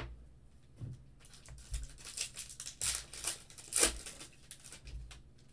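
Foil wrapper of a football trading card pack torn open and crinkled by hand: a run of crackling rustles, loudest about four seconds in.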